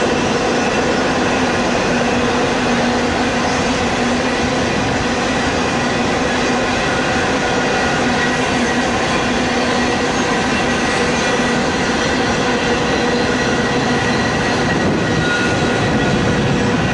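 Double-stack intermodal freight train's well cars rolling past at steady speed: a continuous rumble of steel wheels on rail, with a few steady whining tones running through it.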